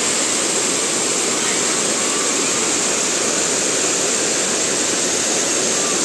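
Waterfall water spilling over rocks into a pool, a steady, even rushing.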